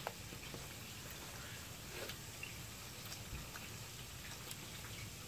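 Faint, scattered clicks and crackles over a steady hiss: quiet eating and the handling of paper-wrapped sandwiches.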